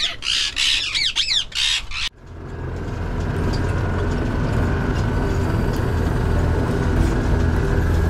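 Aviary birds squawking repeatedly in short harsh calls, cut off abruptly about two seconds in. A steady low mechanical rumble with a hum follows, slowly getting louder.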